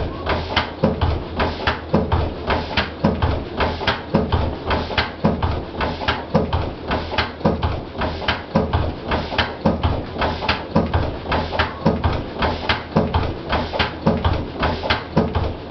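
Old Lister CS slow-speed single-cylinder stationary diesel engine running steadily, with an even, regular beat of firing strokes.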